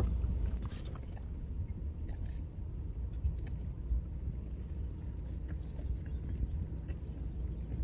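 Fishing boat's engine running with a steady low rumble, with a few faint clicks and knocks over it.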